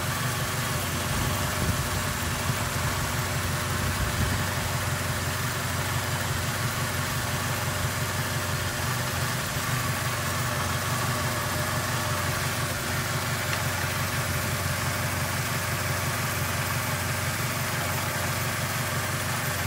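1998 Toyota Hilux 2.7-litre four-cylinder EFI petrol engine idling steadily.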